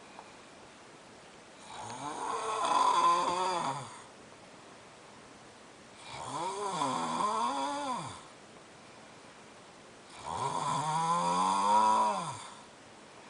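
A man snoring loud: three long snores about four seconds apart, each with a pitch that rises and then falls, with quieter breathing gaps between them.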